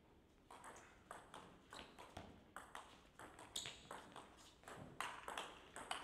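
Table tennis rally: a string of sharp clicks, two or three a second, as the ball bounces on the table and is struck back by the players' bats, starting about half a second in.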